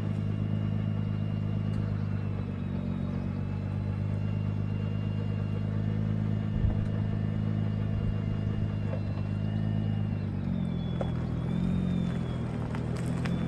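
Nissan GT-R R35's twin-turbo V6 idling steadily at the kerb. Its note shifts about ten seconds in as the car starts to move off.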